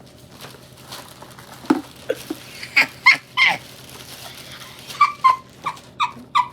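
Dog whining and yipping: a few high whines around three seconds in, then a quick run of short, sharp yips near the end.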